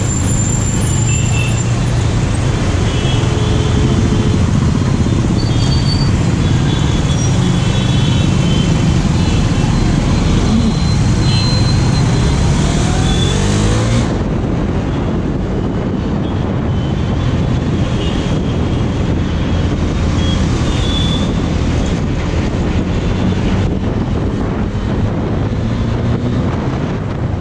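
KTM Duke 390's single-cylinder engine running as the motorcycle rides through city traffic, its pitch rising as it accelerates about halfway through, over surrounding traffic and road noise.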